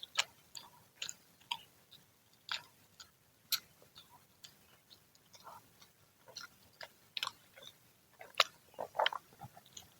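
Close-up chewing of freshly fried gorengan (Indonesian fritters): irregular crunches and mouth clicks, a few every second, with the loudest bite about eight and a half seconds in.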